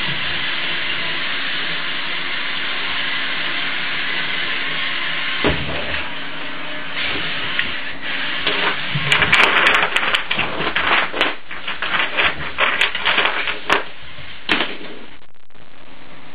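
LEGO Technic remote-control crawler truck running, its electric motors and gears giving a steady whir. From about halfway, many sharp clicks and clatters follow as it crawls over loose stones and tips onto its side.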